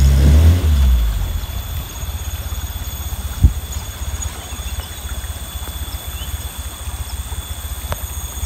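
Jeep Willys replica's engine revving up and back down in the first second, then running at low revs with a steady throb as it crawls off-road. A single sharp knock about three and a half seconds in.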